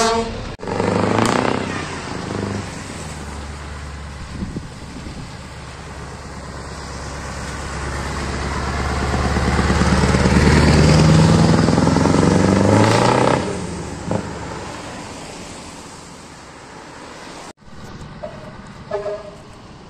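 Scania truck with an open exhaust pipe driving past, its diesel engine note swelling and rising in pitch to a loud peak, then stopping abruptly. A couple of short horn toots near the end.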